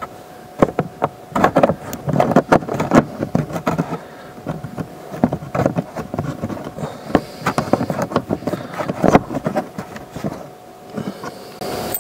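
Irregular clicks, taps and scrapes of fingers working at a fastener and the underside of a car's lower dash panel, some in quick clusters, over a faint steady whine.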